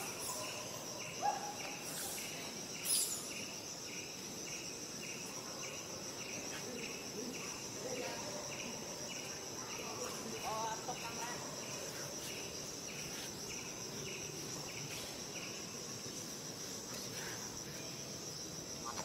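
Chorus of insects: a steady high-pitched buzz with a short chirp repeating about twice a second, and two sharp clicks in the first three seconds.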